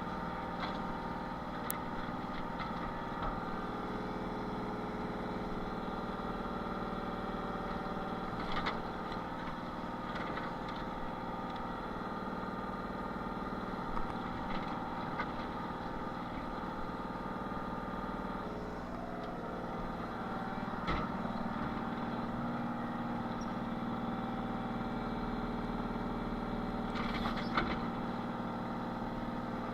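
Excavator engine running steadily while it works a tree stump loose, with occasional short knocks and clanks as the bucket knocks dirt off the stump. The engine note shifts about two-thirds of the way through.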